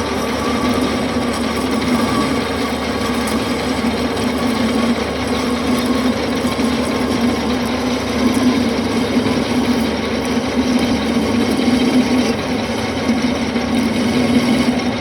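Metal lathe running steadily while its tool cuts metal, a continuous mechanical hum and cutting noise.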